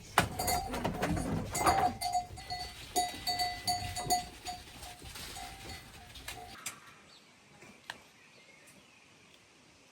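Livestock moving about while a small bell on them clinks repeatedly for the first six seconds or so, then fades to quiet.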